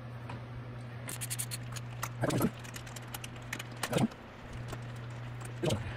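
Light clicks, then three dull knocks about a second and a half apart, as the ATV's front grill piece is worked loose and lifted off.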